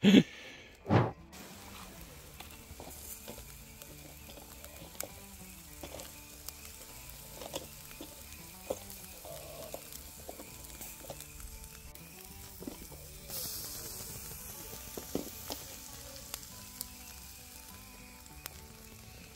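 Food frying in a pan with a steady sizzle, under soft background music. Two loud thumps come in the first second.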